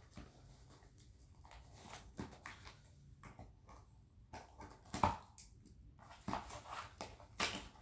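Scissors scraping and snipping through packing tape on a small cardboard box, with faint scratching of the blades on the cardboard and a couple of sharper knocks as the box is handled, about five and seven seconds in.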